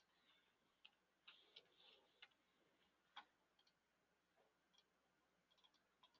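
Near silence: faint room tone with a scattering of small, irregular clicks, the loudest about three seconds in.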